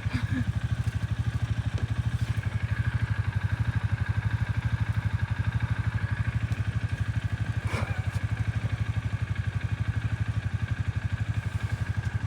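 An engine idling steadily with a rapid, even low pulse, with a couple of short clicks or knocks.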